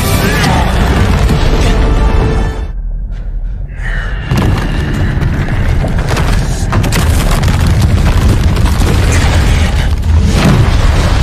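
Action-film soundtrack: heavy booming impacts and crashing rubble over a dramatic music score. About three seconds in, the higher sound drops away for roughly a second and a half, leaving only a low rumble, before the booms and crashes return.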